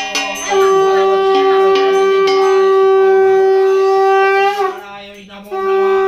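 Conch shell (shankha) blown in long steady blasts: one of about four seconds, a short break, then a second blast that runs on. A ritual hand bell rings briefly at the very start.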